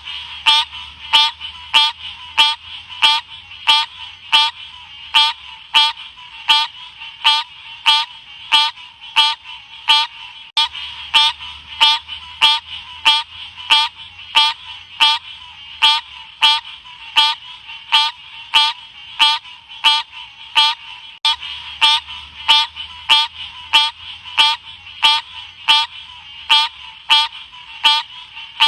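Green cascade frog (Odorrana livida) calling, a short chirp-like note repeated steadily about twice a second.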